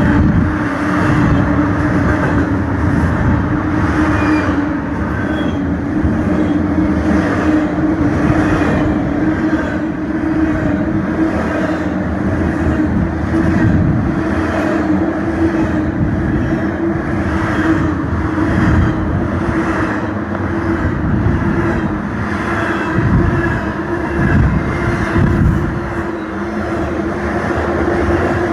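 Intermodal freight train passing at speed, its wheels clattering steadily over the rails with a constant low tone under the noise.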